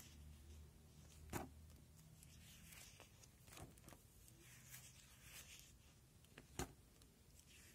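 Faint rustling of clear plastic sheet-protector pages in a binder being handled and turned, with two soft clicks, one about a second in and one near the end.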